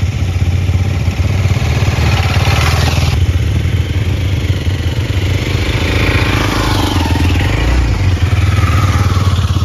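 KTM 390 Adventure's single-cylinder engine running steadily with a rapid, even low pulse as the motorcycle sets off on the ride.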